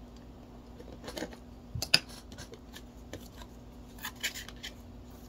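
Tape being cut and picked off a cardboard figure box: short, irregular scratching and clicking strokes, with one sharp click about two seconds in.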